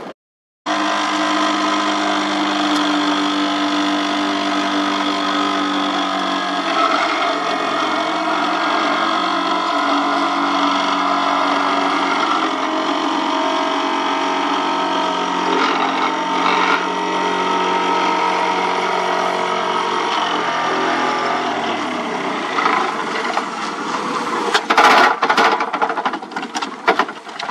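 Excavator-mounted hydraulic vibratory hammer running, clamped on a steel sheet pile and vibrating it into sand, over the excavator's diesel engine: a loud, steady hum of several tones. About 21 seconds in the deepest hum drops away, and near the end come several sharp metal knocks.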